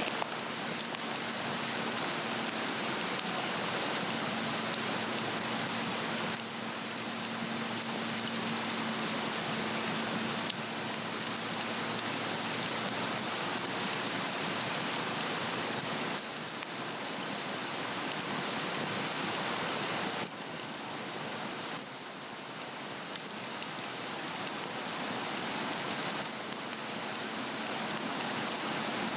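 Swedish torch log fire burning well on a fire stand: a steady hiss with fine crackling throughout, swelling and easing a few times.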